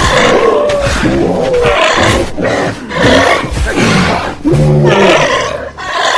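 Cartoon monster roaring and growling: a string of about five loud, rough roars, each about a second long, with the pitch bending up and down.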